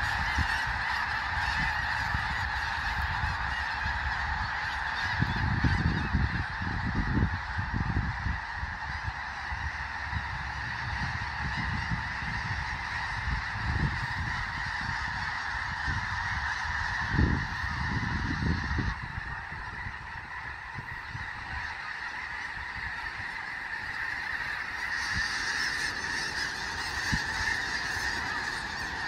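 A huge flock of snow geese calling all at once, a dense, unbroken din of high-pitched honks as the birds wheel over the field. Low rumbles come and go beneath it, strongest around six to eight seconds in and again around seventeen seconds.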